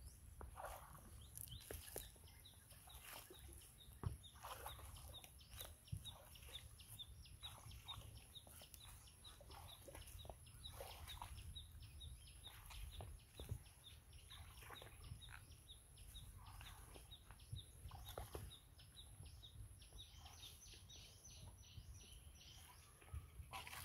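Faint outdoor ambience: birds calling, including a short chirp repeated evenly through most of the stretch, over a steady high hiss. Scattered light knocks, splashes and rustles come from wading through a water-hyacinth swamp and dragging a bamboo pole.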